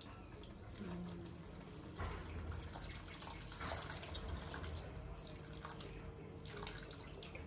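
Water poured in a thin stream from an electric kettle into a stainless steel pot already full of water, trickling and splashing steadily, a little louder from about two seconds in.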